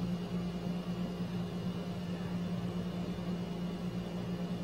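Steady low hum with an even hiss underneath, unchanging background noise with no distinct events.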